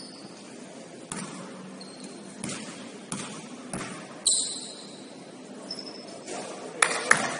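A basketball bouncing on a gym floor, about four separate bounces over the first few seconds, with a couple of short high squeaks. Near the end comes a quick cluster of sharper, louder bounces and knocks, the loudest part.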